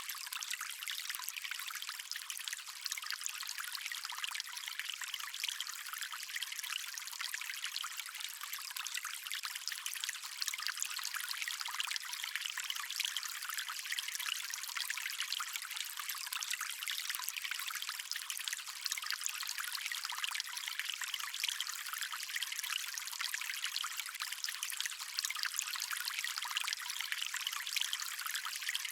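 Water stream trickling and splashing steadily, a bright, thin rush with no deep rumble.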